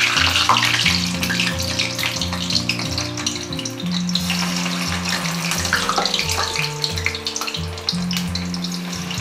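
Cubes of elephant foot yam deep-frying in hot oil in an iron kadai: the oil bubbles and crackles steadily, under background music.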